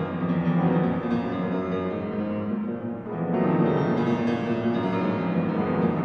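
Instrumental background music of dense, sustained pitched tones, briefly dipping in level about three seconds in.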